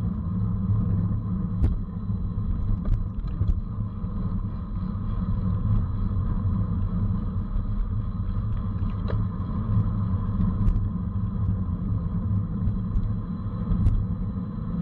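Steady wind and road rumble on the microphone of a camera riding on a racing bicycle at speed, with a few short clicks and knocks scattered through it.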